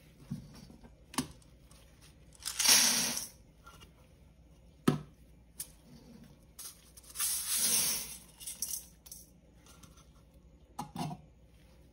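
Dried cloves and then fenugreek seeds poured from plastic cups into a stainless steel bowl: two pours of dry seeds into the metal, one about three seconds in and a longer one near eight seconds, with a few light knocks between them.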